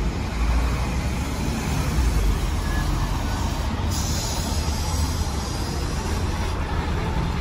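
Diesel engine of a Scania N230UD double-decker bus running steadily, a five-cylinder unit. A high hiss starts about four seconds in and lasts nearly three seconds.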